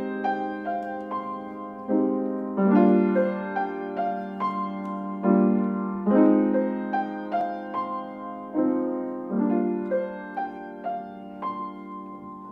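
Grand piano playing a slow introduction: low chords struck every few seconds with single melody notes between them, each note dying away. It grows quieter near the end, ahead of the violin's entry.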